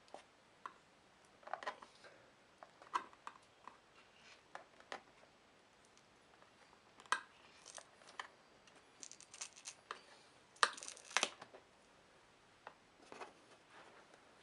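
Irregular small clicks and brief scrapes of hand work on a laptop's plastic case and screws during disassembly, with a louder pair of scrapes about eleven seconds in.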